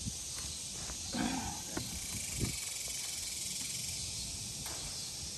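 Steady high chirring of insects in a summer garden, with a few light knocks and rustles in the first half.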